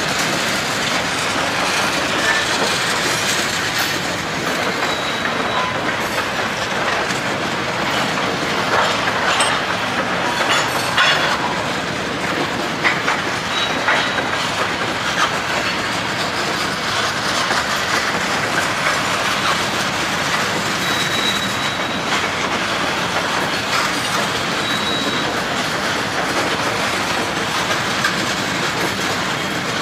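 Open hopper cars of a long freight train rolling past: a steady rolling rumble with wheels clicking over the rails and a few brief high wheel squeals.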